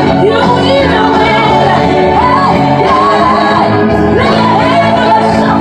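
Loud worship music with voices singing over sustained instrumental chords, the singing rising to shouts and whoops.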